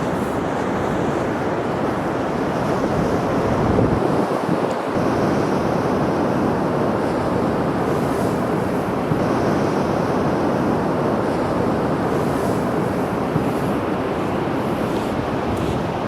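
Winter sea surf breaking and washing on the shore in a continuous rush, with wind; the surge is a little louder about four seconds in.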